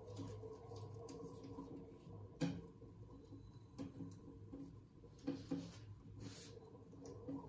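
Light taps and clicks of small parts being handled against a glass aquarium tank, several spread through, the loudest about two and a half seconds in, over a faint steady low hum.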